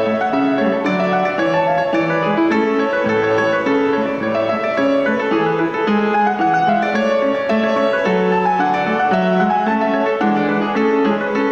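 Scottish country dance tune played on piano, going on steadily without a break.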